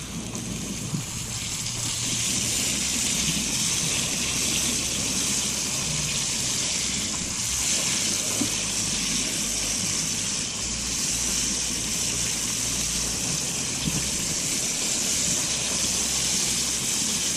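Floured crappie fillets frying in hot grease in a cast iron pan: a steady sizzle that swells about two seconds in, with a few small pops.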